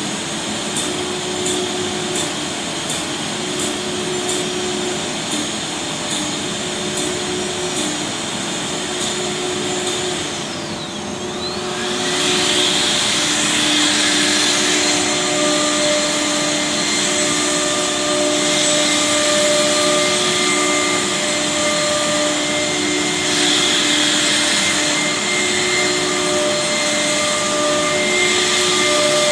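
Air-cooled spindles of a four-spindle CNC wood router cutting a board, running as a steady whine with dust-extraction noise. About ten seconds in the sound dips briefly as a pitch falls and then rises again, and from there on it is louder.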